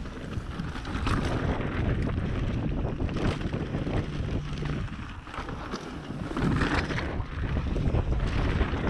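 Mountain bike riding fast down a dirt trail: wind buffeting the action-camera microphone over the rumble of the tyres, with scattered knocks and rattles.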